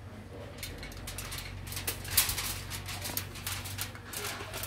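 Aluminium foil crinkling and crackling in quick, irregular bursts as a fish wrapped in it is stuffed with steamed vegetables by hand, thickest from about two seconds in, over a low steady hum.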